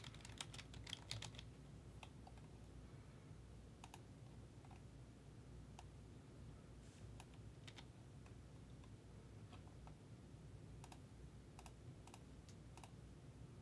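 Faint computer keyboard typing: a quick run of key clicks in the first second or so, then scattered single clicks over a low steady room hum.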